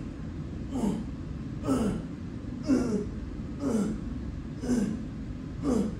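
A man breathing hard as he strains through a slow pull-up: a short, forceful breath out about once a second, each with a bit of voice that drops in pitch, over a steady low hum.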